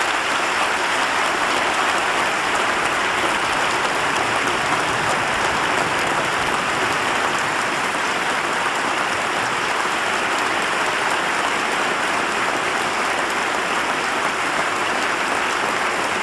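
Large crowd applauding steadily, a sustained ovation with dense, even clapping that neither builds nor fades.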